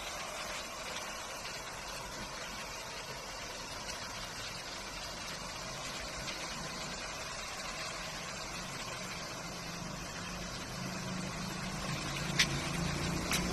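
Steady background noise, with a low hum that grows louder over the last few seconds and two brief sharp clicks near the end.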